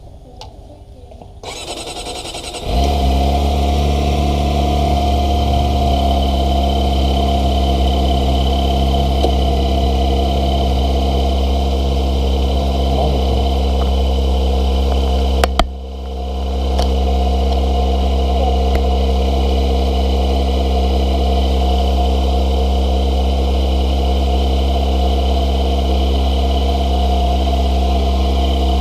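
Kawasaki ZX-25RR's 250 cc inline-four engine being started: the starter cranks for about a second, the engine catches near three seconds in, and it then idles steadily. About halfway through there is a sharp click and a brief dip before the idle settles again.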